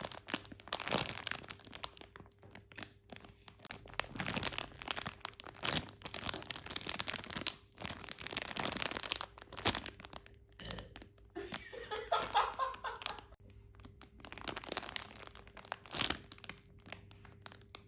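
Plastic packaging crinkling and rustling in irregular crackles while a squishy toy is handled in its bag.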